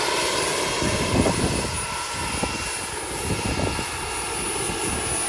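Turbine-powered model helicopter, a Vario Hughes 500 with a JetCat PHT 3 turbine, flying: the turbine's steady high whine over the rush of the main rotor.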